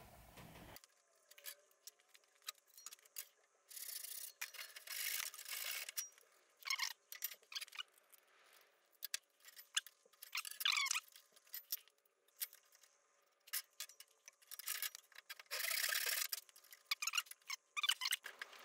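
Thin wooden strips scraping and rubbing against a plywood boat's gunwale as they are slid and fitted by hand. The sound comes as short, irregular scrapes with a few squeaks and light knocks.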